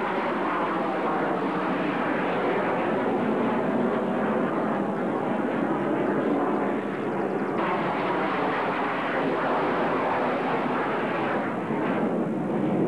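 General Dynamics F-111E jet passing overhead after takeoff, its twin Pratt & Whitney TF30 turbofans making a loud, steady roar.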